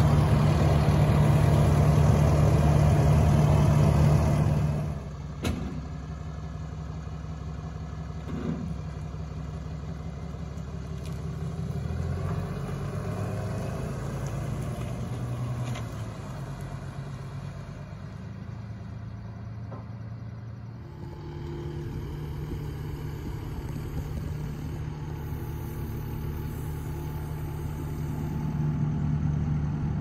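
A diesel engine idling close by with a steady low hum, cutting off suddenly about four seconds in; after that, quieter engine sound from a pickup truck towing a loaded dump trailer as it pulls out onto the road.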